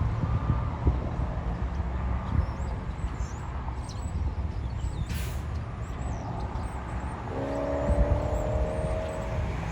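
A heavy engine running with a steady low rumble. About seven seconds in, a steady pitched whine sounds for about two seconds.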